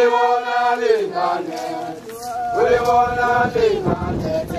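Zulu ceremonial chanting by a group of voices: two long held notes, each falling away at its end. Low thuds come in near the end.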